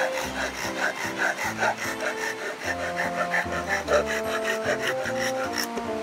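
Hand saw cutting through a soft cedar board in quick, even back-and-forth strokes, about three a second, over background music.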